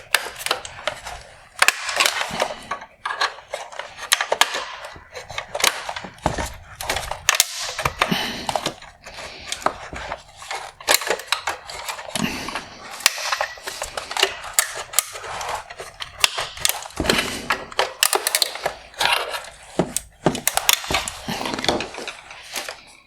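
Metal hook tool prying and scraping at the plastic clips of a headlight bezel, with many irregular clicks, snaps and rattles of hard plastic as the clips are worked loose.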